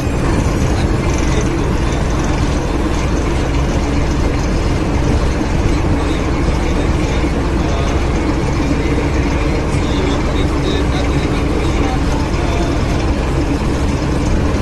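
Fishing boat's engine running steadily, a constant low drone and hum with no change in speed.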